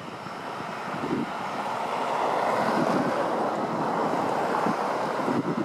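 Cessna 208B Grand Caravan's PT6A turboprop engine and propeller, a steady rushing noise that grows louder as the plane rolls along the runway after landing. Wind buffets the microphone.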